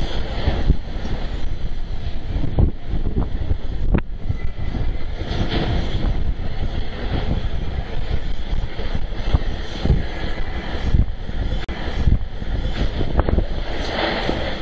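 Track tamping machine's diesel engine running steadily at a distance, an even drone with an uneven low rumble.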